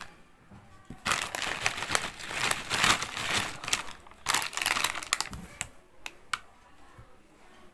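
Plastic snack packet of Kurkure crinkling as it is shaken and tipped, with the crunchy sticks spilling out onto a mat. It comes as two spells of rustling, then a few separate light clicks a little after the middle.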